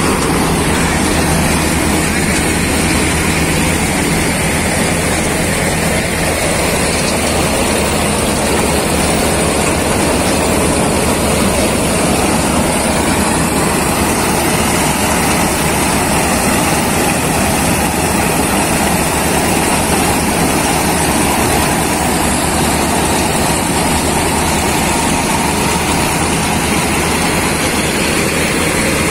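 Sonalika combine harvester running at work: its diesel engine and threshing machinery make a loud, steady mechanical din with a low hum underneath.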